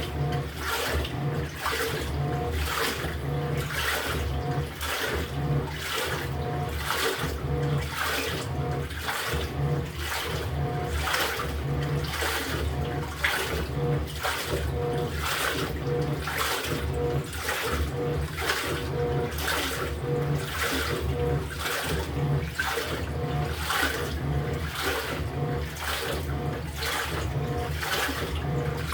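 LG top-loading washing machine agitating its load in water: the pulsator churns back and forth, sending surges of sloshing water a little over once a second, each stroke with a pulse of motor hum.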